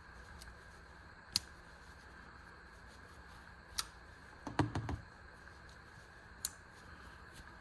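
Ozark Trail folding pocket knife with ceramic bearings being flipped open and shut, giving sharp metallic clicks a second or two apart, with a quick cluster of clicks about halfway through.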